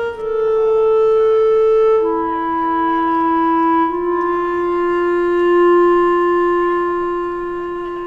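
Background score: a solo wind instrument plays a slow line of long held notes. It steps down in pitch about two seconds in, then holds one low note that slowly fades near the end.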